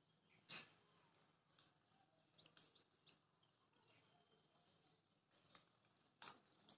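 Faint chirps of small birds: a few short, high calls clustered around the middle. Several sharp clicks stand out, the loudest about half a second in and others near the end.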